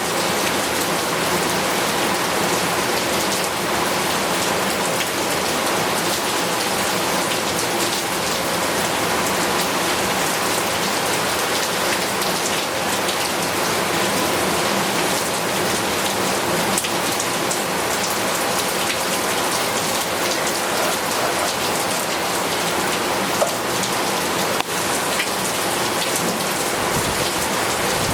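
Heavy rain falling steadily on hard surfaces, a dense even patter of drops.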